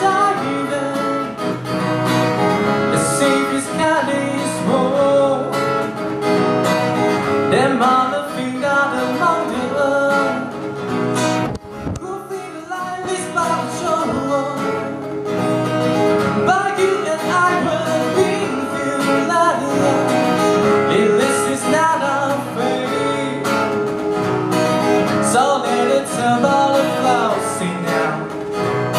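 Live acoustic music: a singer's voice over strummed acoustic guitar, with a short lull about eleven seconds in.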